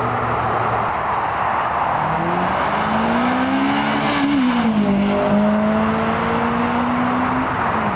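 Toyota Celica GT-S with its 2ZZ four-cylinder engine driving past: the engine note climbs as the car approaches, drops in pitch as it passes about four and a half seconds in, then holds steady as it pulls away, over a steady rushing noise.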